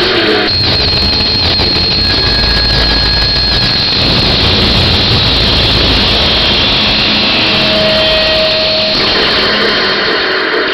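Steady, loud roar of a large arena concert crowd and hall noise, with a high thin whine over the first few seconds.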